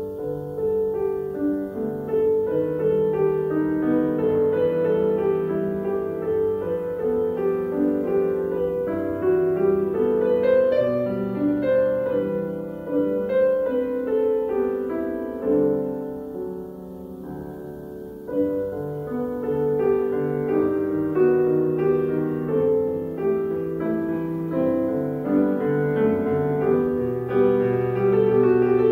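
Grand piano played solo, many notes flowing together. It drops to a softer passage a little past halfway, then swells again.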